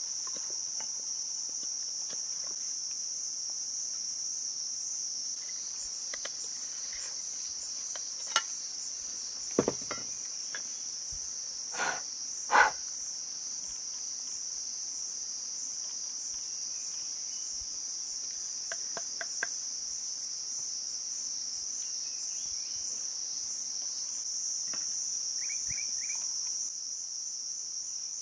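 Steady high-pitched drone of insects, with a few scattered sharp knocks and scrapes of a knife working green bamboo; the loudest is a pair of knocks near the middle.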